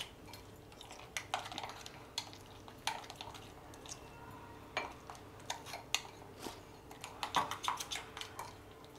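A spoon stirring a thick yogurt-and-spice marinade in a bowl, clinking and scraping against the bowl at irregular moments, busier in the second half.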